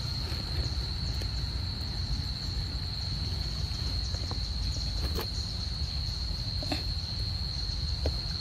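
A steady, high-pitched drone of insects calling at one unchanging pitch, over a low background rumble, with a few short clicks or rustles in the second half.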